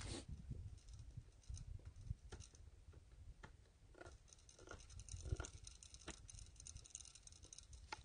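Hand-carving a wooden spoon: faint, irregular scraping strokes and small clicks of the carving tool on the wood.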